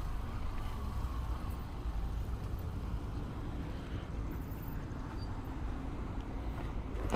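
Motorcycle engine running in city traffic, with surrounding traffic noise: a steady low rumble.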